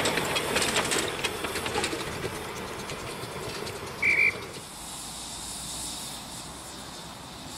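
Miniature steam train running, wheels clicking over the rail joints for the first couple of seconds and fading. About four seconds in comes one short, high whistle note. After that only a quieter steady hiss remains.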